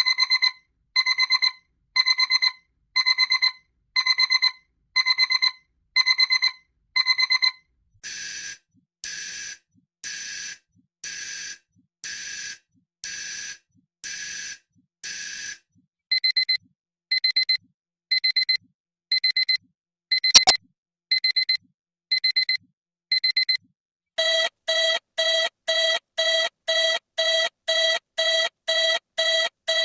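Four alarm clock sounds in turn. First, electronic beeping in quick groups of about four beeps, one group a second. Then harsher, hissier ringing bursts about once a second, then higher, thinner beep groups broken by a sharp click about twenty seconds in, and last a lower, buzzier beep repeating about twice a second.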